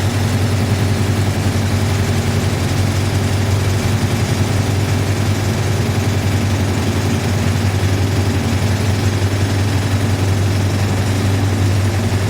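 Air compressor running steadily with a strong low hum as it pumps up near the top of its pressure cycle. Its pressure switch has just been oiled because a dry contact was making it hang up.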